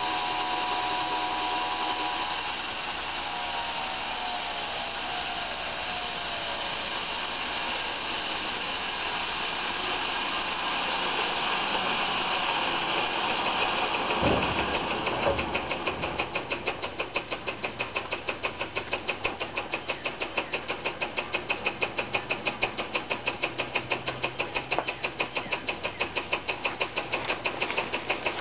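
Homemade sawmill's engine running under load, its pitch dropping a few seconds in. There is a single thump about halfway, then the engine settles into an even idle of several beats a second.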